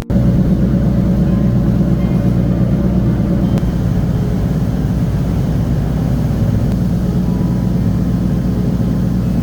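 A vehicle's engine running steadily, a loud low rumble with no change in pace.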